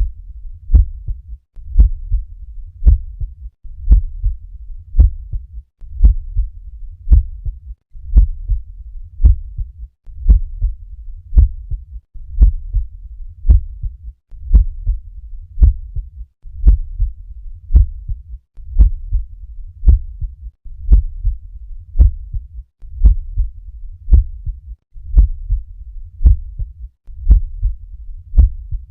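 Normal heart sounds auscultated at the cardiac apex: regular lub-dub pairs (first and second heart sounds) over a steady low rumble. The sound breaks off briefly about every two seconds.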